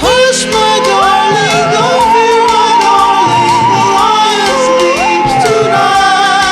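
Recorded music: a wordless sung melody that swoops up into long held notes with vibrato, over a steady backing.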